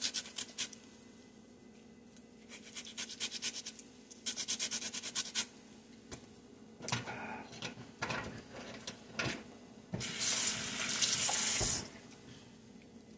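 Lemon being rubbed over a handheld stainless steel grater in quick rasping strokes, in three short bursts, followed by a few knocks and scrapes of the metal grater in a plastic tub. Near the end a steady hiss lasts about two seconds.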